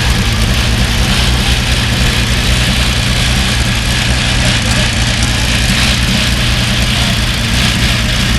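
Porsche 917's air-cooled flat-twelve racing engine idling steadily.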